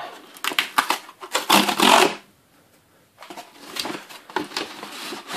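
Cardboard mailer box being handled and torn open by hand. Quick scrapes and taps, with a harsher rasp of about half a second around two seconds in, then a second of quiet before more rustling.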